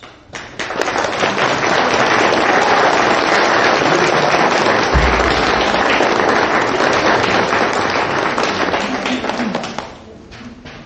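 Audience applauding, starting about half a second in and dying away about a second before the end.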